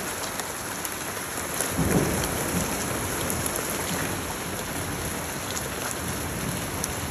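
Rain falling steadily, with a low rumble of thunder that swells about two seconds in and rolls on more quietly afterwards.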